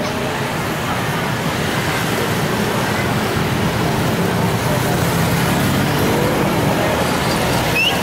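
Steady noise of close road traffic: motorcycles and a tour bus driving past, with an engine's pitch rising briefly about six seconds in.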